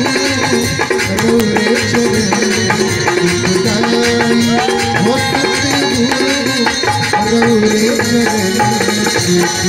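Live Indian folk band playing an instrumental passage: harmonium and electronic keyboard holding sustained melody notes over busy hand-drum and shaken-rattle percussion.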